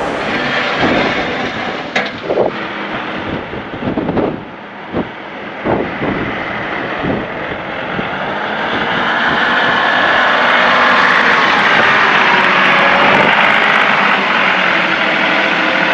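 John Deere 2038R compact tractor's diesel engine running while plowing snow, with a series of knocks in the first half, then a steadier, louder rush of noise from about halfway through.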